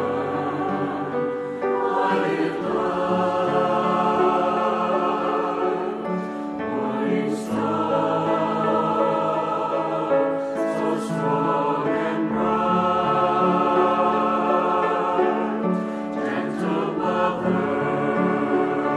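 A choir singing a slow devotional hymn in sustained chords.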